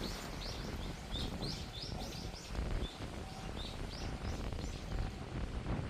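A songbird chirping over and over in short rising-and-falling notes, several a second, with a steady low wind rumble on the microphone underneath.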